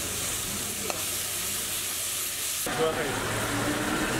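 Vegetables sizzling in a hot iron wok as a metal ladle stirs and tosses them, with a sharp clack of the ladle on the wok about a second in. About two-thirds through, the hiss drops and a low pitched drone joins in.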